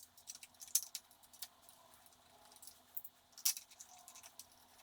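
Light clicks and taps of the plastic handlebar switch housing and its screws being handled and fitted back together, a few scattered sharp ticks with the loudest about three and a half seconds in.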